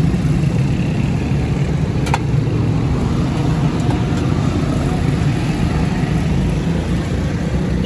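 Steady low rumble of street traffic and idling engines, with a single sharp click about two seconds in.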